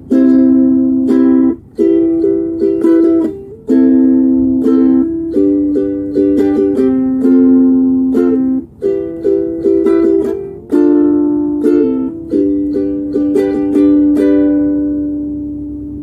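Solo ukulele strummed, playing a chord progression in short phrases with brief breaks between them. The last chord is left to ring and slowly fade over the final few seconds.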